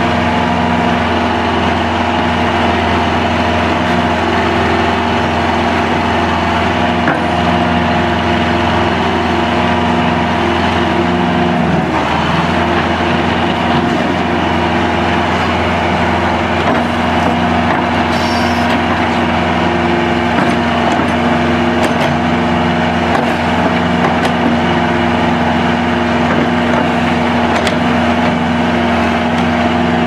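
John Deere 500C backhoe's engine running steadily while the hydraulic boom and bucket dig and dump gravel, its note dipping briefly about twelve seconds in as it takes the load. Faint scattered clicks of gravel and bucket over the engine.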